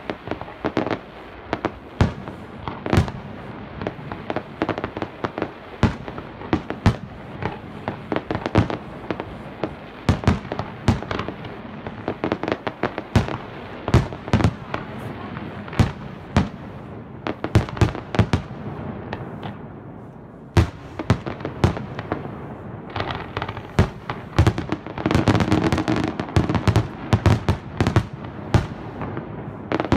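Fireworks display: a long run of irregular, overlapping bangs, with a brief lull past the middle and then a denser, rapid barrage of bangs over the last several seconds.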